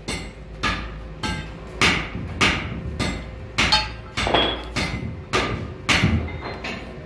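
Hand hammer striking a heated metal tie rod end part in a steady rhythm: about a dozen sharp metal-on-metal blows, a little under two a second, each with a short ring.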